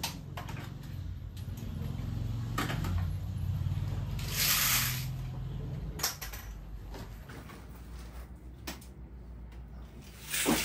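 Scattered clicks and knocks of small items being handled and set down, with a brief rustle about four and a half seconds in, over a low steady hum.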